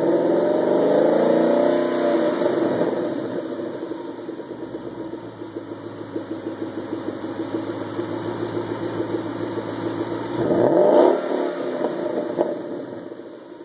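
2011 Ford Mustang GT's 5.0-litre V8 running through a newly fitted SVT exhaust: the revs fall back to idle over the first few seconds, it idles steadily, then a quick blip of the throttle about ten seconds in, and it gets quieter near the end.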